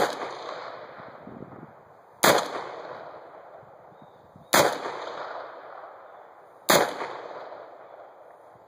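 AR-15 rifle with a gas-piston Spikes Tactical upper firing 5.56 mm / .223 rounds: four single shots about two seconds apart, each followed by an echo that trails off over about a second.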